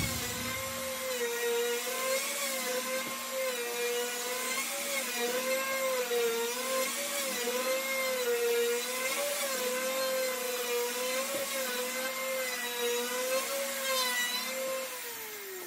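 Handheld electric router on a flattening sled, its bit cutting across walnut, cherry and maple end grain: a steady high whine that wavers up and down in pitch as the bit takes load on each pass. Near the end the pitch falls away.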